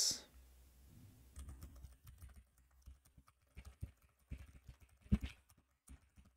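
Typing on a computer keyboard: soft, irregular keystrokes starting about a second in, with one louder key press near the end.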